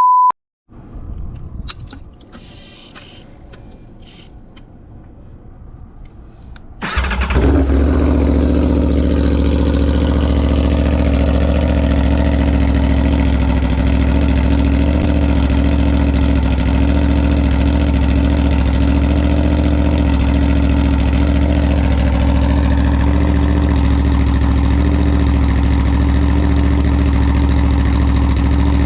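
Aprilia RSV4 1100 Factory's V4 engine with an SC-Project exhaust, starting suddenly about seven seconds in and settling into a steady idle. Before it, a few quiet clicks over a low rumble.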